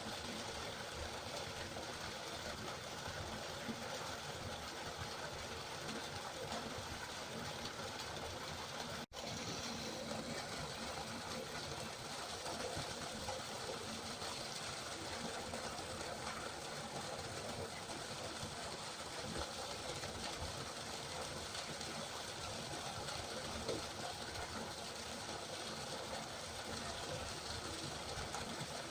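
Steady rushing of river water, an even hiss with no let-up, broken by a split-second dropout about nine seconds in.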